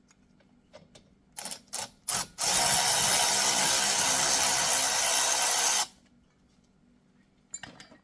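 Power wrench running steadily for about three and a half seconds, spinning out a brake caliper slide bolt, after a few clicks and clatters as the tool is set on the bolt. A few more clicks near the end.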